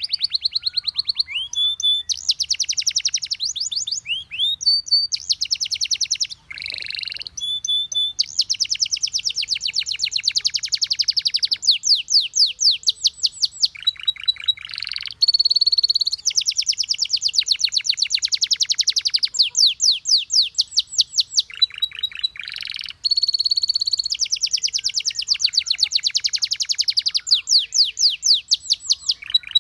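Domestic canary singing a long, continuous song of fast trills, each of rapidly repeated high notes, with sliding whistled notes between them. The song is broken only by a few short pauses.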